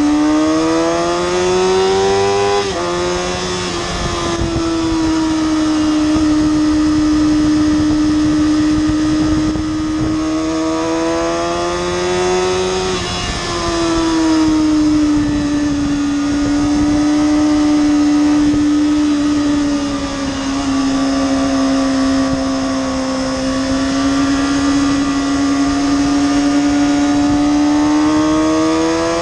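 2007 Kawasaki ZX-6R inline-four running at high revs under way, through a Two Brothers slip-on can with stock headers and catalytic converter. The revs climb and then drop sharply about three seconds in, as at an upshift, then ease down and climb again in long swells.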